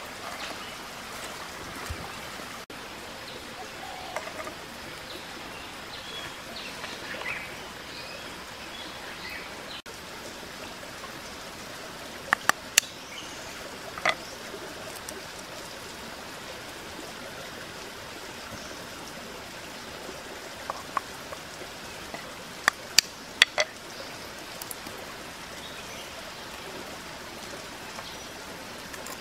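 Creek water running steadily, with sharp taps in small groups as duck eggs are knocked against the rim of a clay dish to crack them open.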